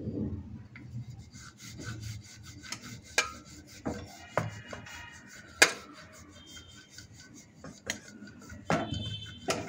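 A wooden rolling pin (belan) rolling a stuffed paratha back and forth on a wooden board (chakla): repeated rubbing strokes with a few sharp clicks, the loudest about five and a half seconds in.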